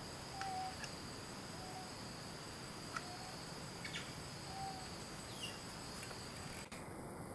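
Steady high-pitched drone of forest insects, with short, faint call notes repeating every second or so and a few light ticks.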